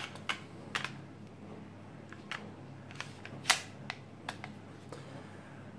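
Magazine of a Ceonic Sig Sauer P320 blank pistol being pushed into its polymer grip: a series of short, sharp clicks and knocks, the loudest about three and a half seconds in.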